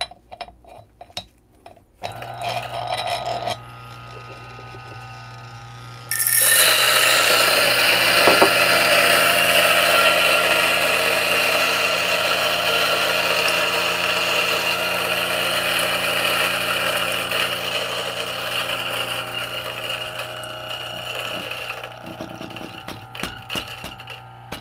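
Turin DF64P single-dose flat-burr coffee grinder, fitted with Gorilla Gear burrs, grinding an 18 g dose of coffee beans for espresso. The motor starts with a steady hum about two seconds in. The loud grinding of beans through the burrs begins about six seconds in and slowly fades. Near the end the motor runs on empty once the beans are through.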